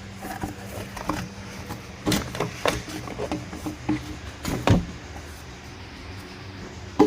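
Irregular clunks and knocks of plastic parts being handled as the ATV's air box is pulled out, with a sharper knock near the end.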